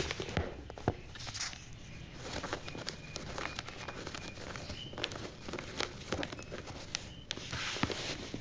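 Scattered light knocks and clicks over a soft rustling, uneven rather than a steady rhythm, with a few faint short high beeps near the middle.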